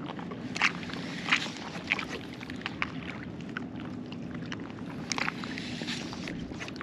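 Shallow bay water sloshing and lapping around a person wading, a steady low wash broken by scattered small splashes, the sharpest about half a second in, at about a second and a half, and again near five seconds.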